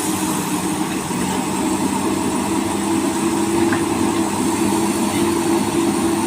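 Komatsu hydraulic excavator's diesel engine running steadily at an even pitch.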